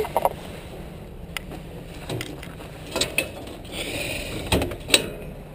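Scattered sharp clicks and knocks of handling inside a stainless-steel dog compartment of an animal-control truck, with a short scraping rustle a little before the two loudest knocks near the end.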